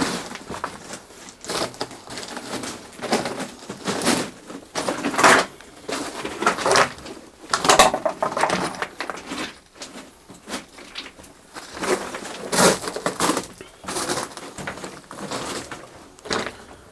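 Footsteps crunching on loose gravel and rock, an irregular series of steps, about one a second, with a pause of a couple of seconds around the middle.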